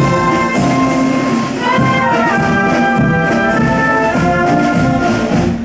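Marching wind band of clarinets and brass playing a tune.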